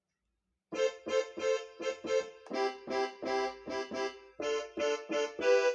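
Yamaha PSR-I455 keyboard's accordion voice (voice 53) playing a melody of quick single notes, starting just under a second in.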